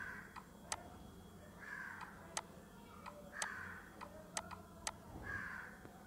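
Computer mouse clicking several times at irregular intervals while a dimension is placed, with a bird calling in the background about every two seconds.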